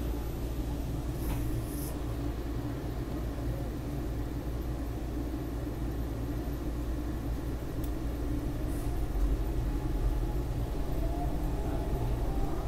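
Steady low rumble and hum inside a SEPTA Market-Frankford Line subway car. In the last few seconds a faint rising whine joins it and the sound grows a little louder as the train starts to pull away.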